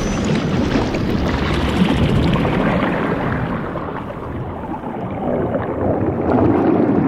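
Underwater sound effect: a rushing, bubbling water noise. Its upper hiss fades out about halfway through, and it swells again near the end.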